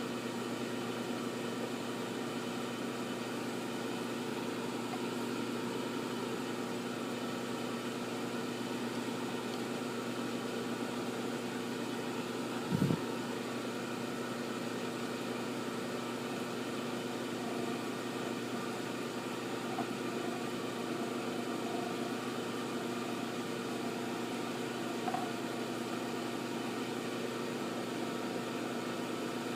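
Milling machine running steadily with an even, multi-pitched hum while machining slots into an M1911 pistol slide. A single short knock comes about 13 seconds in.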